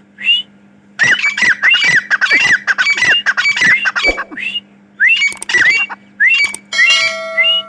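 Grey francolin (Dakhni teetar) calling: loud, ringing, rapidly repeated notes delivered in three quick series, the bird's territorial call.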